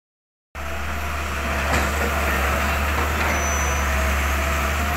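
Hitachi hydraulic excavator's diesel engine running steadily with a low rumble, with a couple of faint knocks about a second and a half and three seconds in.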